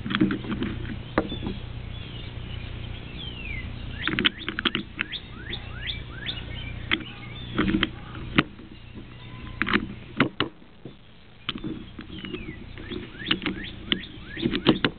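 Hard plastic clicks and short squeaks of Rubik's cube pieces being snapped and slid back together during reassembly, the pieces freshly sanded and sprayed with silicone lubricant. The clicks come at irregular intervals.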